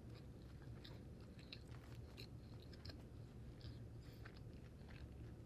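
Faint chewing of a cheeseburger, with soft irregular mouth clicks and smacks over a low steady hum.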